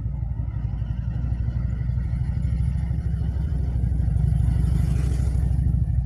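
Motorboat engine running at speed, a low drone that grows louder as the boat draws closer.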